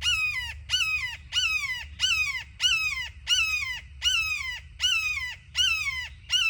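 A hawk calling loudly and repeatedly: about ten harsh, downward-sliding screams in an even series, roughly one and a half a second.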